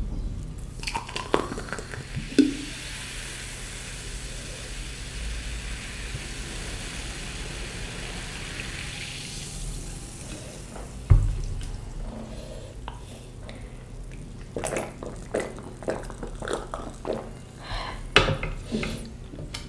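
Water running with a steady hiss for about seven seconds, then a single thud and a run of short clinks and knocks of dishes and utensils.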